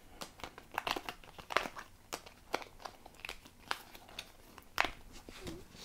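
Thin printed card stock being popped out of its die-cut sheet and handled: a string of irregular sharp clicks and snaps with crinkling card.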